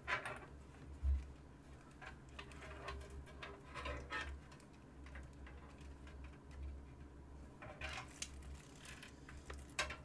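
Power supply cables and connectors being handled and routed on an open PC test bench: scattered light clicks and rattles of plastic and cable, with a dull knock about a second in.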